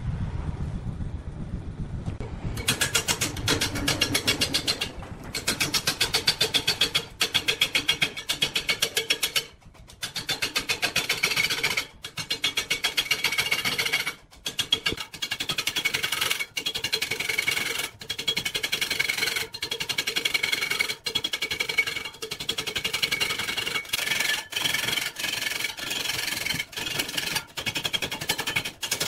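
A large log turning on a wood lathe, first a low rumble and then, about two and a half seconds in, a long-handled turning chisel biting into the spinning wood with rapid, rhythmic chattering knocks. The cutting stops briefly a few times as the tool comes off the wood.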